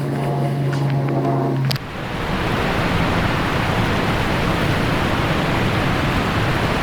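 A steady low tone with a few overtones, which cuts off with a click about two seconds in, then a steady rushing outdoor noise like wind on the microphone.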